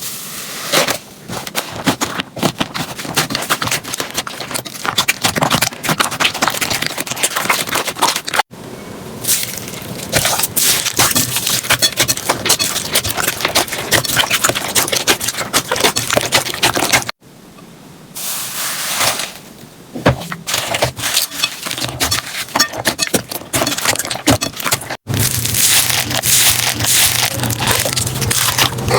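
Slime being squeezed and pressed by hand, with dense crackling and popping as air pockets burst. It comes in several stretches broken by abrupt cuts about every eight seconds.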